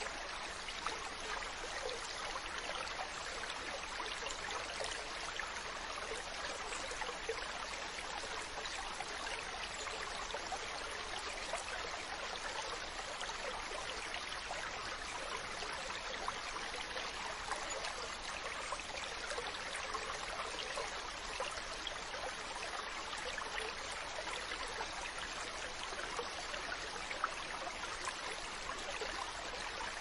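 Running water: the steady rush of a stream, with no change in character.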